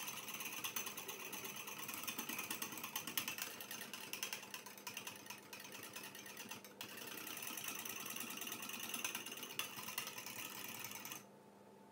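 Metal wire whisk beating dalgona coffee mixture (instant coffee, sugar and water) by hand in a small ceramic bowl: a fast, steady clatter of the tines against the bowl, with a brief break a little past halfway, stopping just before the end. The mixture is only just starting to stiffen.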